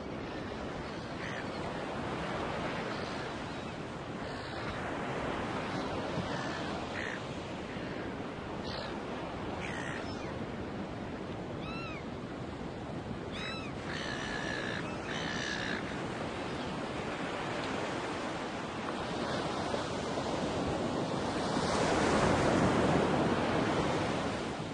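Steady wash of ocean surf, swelling louder near the end, with a few seagull calls about halfway through.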